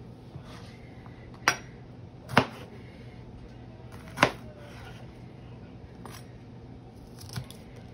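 Chef's knife cutting a jalapeño on a plastic cutting board: a few separate knocks of the blade on the board, three sharper ones in the first half and two lighter ones later, over a steady low hum.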